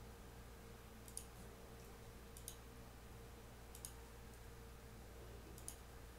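Four faint clicks from a computer mouse and keyboard, spaced a second or more apart, each a quick double tick, over a low steady hum.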